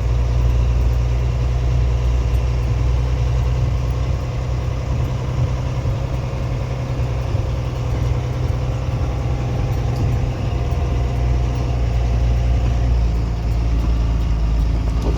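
Heavy diesel engine running steadily under load: a loud, even low rumble with no change in pace.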